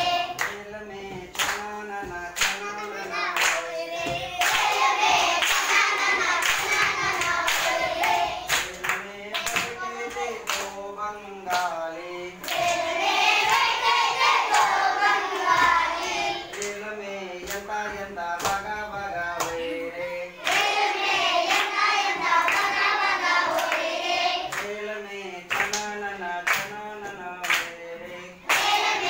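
A group of children singing a song together while clapping along in rhythm.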